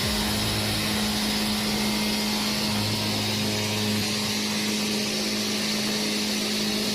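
Firewood processing machine running steadily, its motor giving an even hum with a constant hiss above it.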